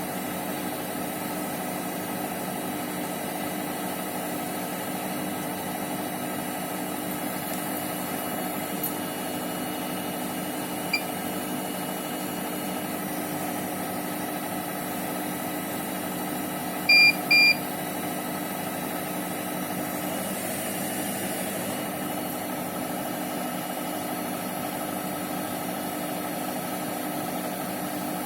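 Bosch Serie 6 Vario Perfect washing machine running mid-wash with a steady hum. Its control panel gives a short beep about eleven seconds in, then two louder beeps close together a few seconds later, as its buttons are pressed.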